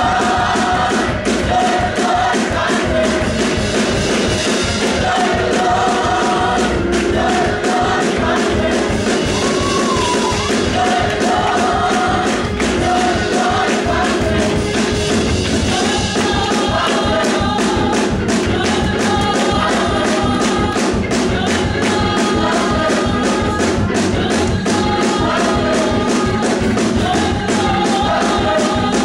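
Gospel choir singing in full voice over instrumental accompaniment with a steady beat.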